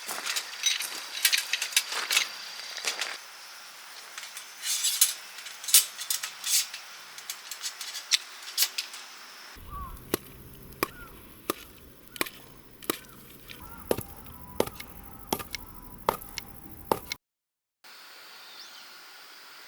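Repeated sharp chopping strikes. They come irregularly at first, then settle into a steady run of about two a second, which stops abruptly near the end.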